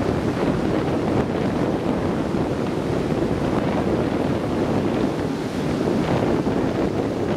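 Steady wind buffeting the microphone over the rush of heavy surf breaking.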